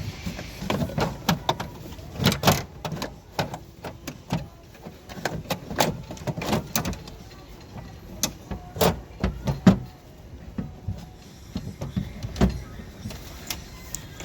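Irregular clicks, knocks and light rattles of a door lock actuator and its plastic and metal parts being handled and worked loose inside an open car door.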